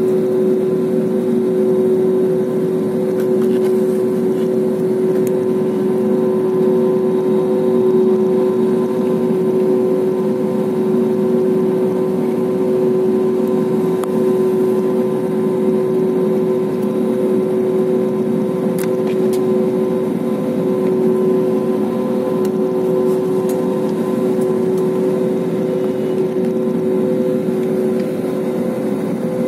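Airliner cabin noise during taxi after landing: the jet engines at low power give a steady, unchanging hum, heard inside the cabin beside the engine.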